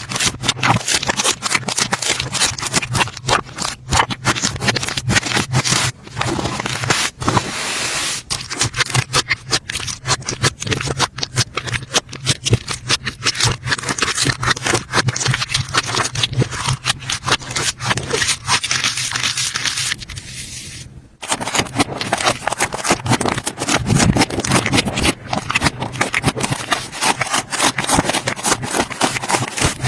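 Slime being squeezed and pressed by hand, giving a dense run of rapid crackling clicks and pops. There is a brief pause a little past two-thirds of the way through, then it resumes.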